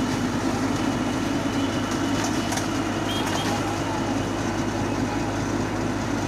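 Komatsu PC71 excavator's diesel engine running steadily at an even pitch.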